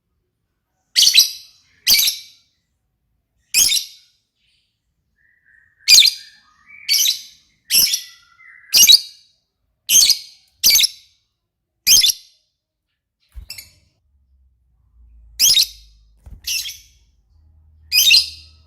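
Lovebird calling in short, loud, high-pitched chirps, roughly one a second, broken by pauses of a couple of seconds.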